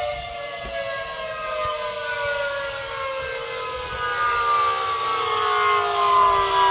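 Warning siren winding down: a chord of tones sliding slowly and steadily lower in pitch over a steady held tone.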